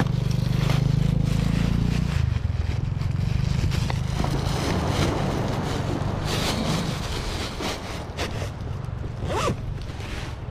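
A motorcycle engine running past, loudest in the first two seconds and then fading, with close scraping and rustling near the microphone.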